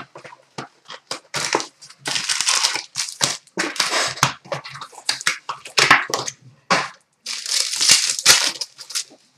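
A hockey card box and its packs being opened by hand: wrappers crinkling and tearing in short, irregular bursts of noise.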